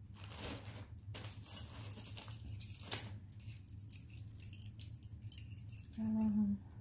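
Metal costume jewelry jingling and clinking as pieces are handled and sorted, with scattered light clicks.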